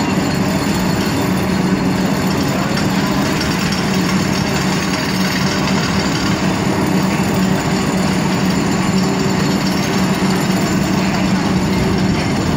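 Kingpost pile-driving rig running steadily and loudly as a steel kingpost is driven into the ground: a dense, unbroken mechanical din over a steady low hum.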